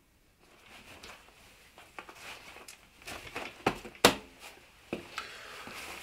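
Belt webbing and clothing rustling, with several sharp clicks, the loudest about four seconds in, as a tactical belt is put on.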